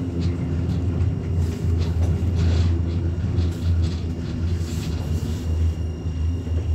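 Class 399 tram-train running along the track, heard from inside the driver's cab: a steady low rumble with a few faint clicks.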